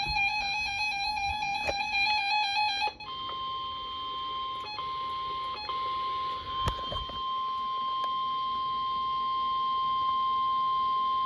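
NOAA Weather Radio 1050 Hz warning alarm tone: one steady, long electronic tone that begins about three seconds in and runs to the end, briefly breaking twice near its start. It announces a severe thunderstorm warning. Before it, a warbling pitched sound plays and cuts off as the tone begins.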